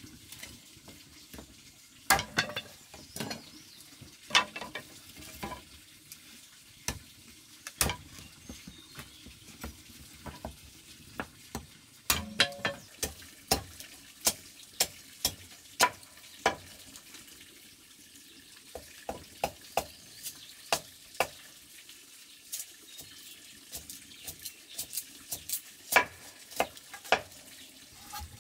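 Irregular sharp cracks and snaps: a cleaver splitting bamboo sticks, then dry bamboo kindling crackling as it catches and burns in a clay wood-fired stove.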